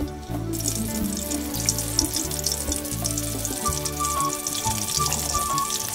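Jackfruit-seed-flour rolls deep-frying in hot oil in a wok: a dense crackling sizzle that starts about half a second in and keeps on steadily, over background music.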